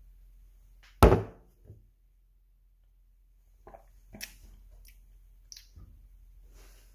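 A sudden thump about a second in, followed by faint clicks and mouth sounds as a bottle of bird's nest drink is sipped and its jelly-like contents swallowed.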